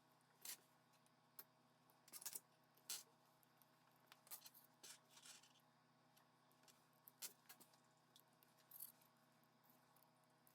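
Faint, scattered clicks, taps and light scrapes of small tools and plastic and metal parts being handled while a Nokia 5.1 smartphone is reassembled. They come irregularly, several in a row around the middle, over a quiet background hum.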